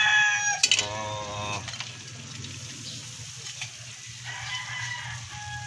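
A rooster crowing, its call ending about a second and a half in, with a fainter crow about four seconds in. Under it, a pan of sautéed green beans sizzles softly over a low steady hum.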